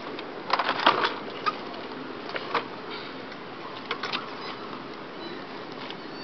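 Scattered clicks and knocks in a few small clusters over a steady background noise, from hands working the wind-up vehicle's spring ratchet mechanism.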